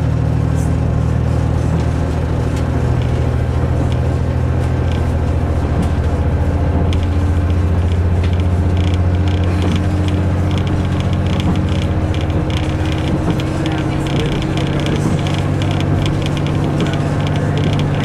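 Inside a KiHa 121 diesel railcar under way: the steady drone of its diesel engine, with rapid rattling and creaking from the carriage from about seven seconds in.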